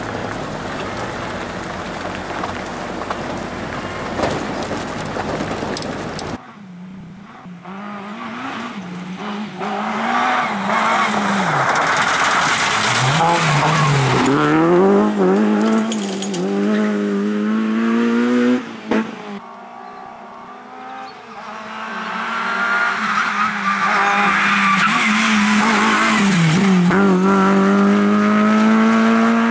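Honda Civic Type R rally car's four-cylinder engine revving hard on a test stage, heard in separate clips. The engine pitch climbs, drops sharply at gear changes and lifts, then climbs again as the car passes close by.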